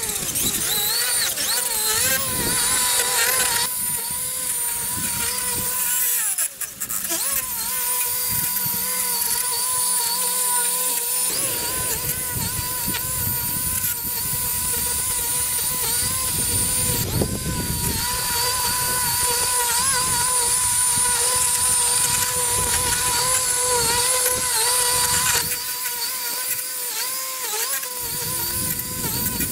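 Battery-powered electric lawn equipment running: a steady high motor whine that wavers slightly in pitch, over a rushing hiss, with a brief drop about six and a half seconds in.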